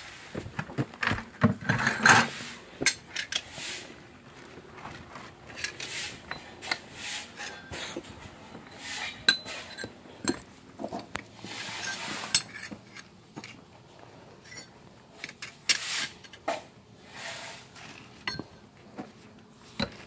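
Irregular light metal clinks and knocks of hand tools and steel parts being handled at a foundation pier, with bursts of rustling and scraping.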